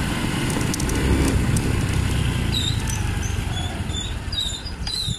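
A small motorcycle being ridden: its engine runs under steady wind rush on the microphone, with a few short high chirps in the second half.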